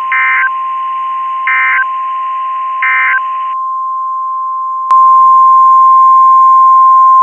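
Emergency Alert System data tones: three short warbling bursts about a second and a half apart, the end-of-message signal, over a fainter steady tone. About five seconds in, a loud steady single-pitch alert tone near 1 kHz begins, the NOAA Weather Radio 1050 Hz warning alarm that announces the next alert.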